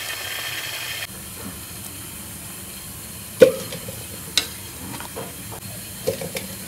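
Potatoes frying in hot oil: a steady sizzle that drops to a quieter sizzle about a second in. Over it a perforated metal spoon clanks and taps against aluminium pots as the fried potatoes are lifted out, the loudest clank about three and a half seconds in, followed by several lighter taps.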